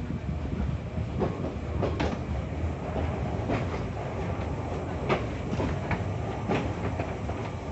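Kintetsu Nishi-Shigi Cable funicular car climbing, heard from inside the car: a steady low rumble from the running gear, with irregular sharp clacks of the wheels on the track.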